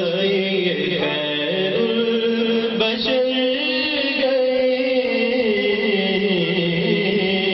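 A man singing an Urdu naat in long, held notes that glide up and down in pitch.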